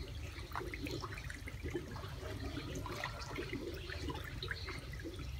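Water sloshing and splashing in a plastic basin as hands work through eels to clean them, with many small irregular splashes over a steady low rumble.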